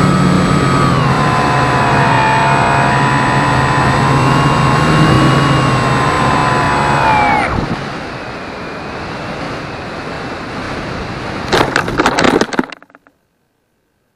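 Phoenix 2000 electric RC glider's motor and propeller running with a steady whine, dipping in pitch about a second in and cutting off about seven seconds in. Wind rush follows as it glides, then a rapid cluster of knocks and scrapes as it comes down on grass about twelve seconds in, after which the sound stops.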